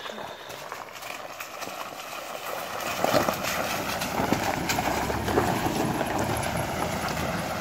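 Ford pickup truck rolling slowly over a wet gravel trail toward the listener, its tyres crunching and popping over loose stones, with the engine running under it. The sound grows louder as the truck nears, strongest from about three seconds in.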